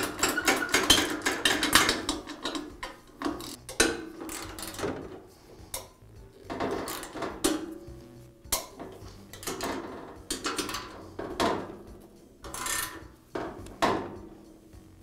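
Socket ratchet wrench clicking as bolts are tightened into the tile saw base: a fast run of clicks in the first couple of seconds, then slower, spaced strokes with a few sharp metal knocks.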